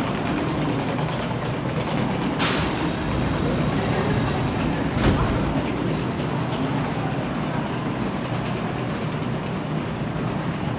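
Kintetsu commuter train's pneumatic doors closing: a sudden hiss of compressed air about two and a half seconds in, lasting nearly two seconds, then a thud as the doors shut about five seconds in, over the train's steady low hum.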